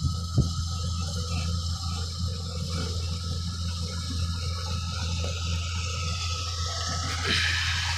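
Tractor diesel engine running at a steady drone, with a constant rushing noise over it. A louder rush of noise rises about seven seconds in.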